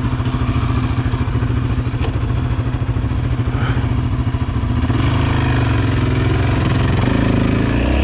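Yamaha Raptor 700's single-cylinder engine running at low revs with an even pulse, then revving up from about five seconds in as the quad pulls away and starts up a steep sand slope.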